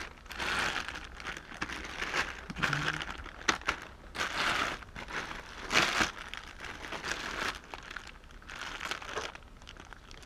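Clear plastic zip-top bags holding loose action figures crinkling and rustling in irregular bursts as a hand rifles through them in a plastic tub.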